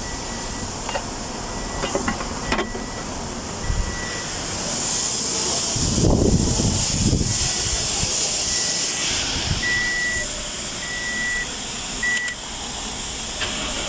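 Toyota Yaris being started after a new fuel pump was fitted. A chime beeps on and off while a steady hiss swells about four seconds in, with a short low rumble near the middle as the engine starts and runs.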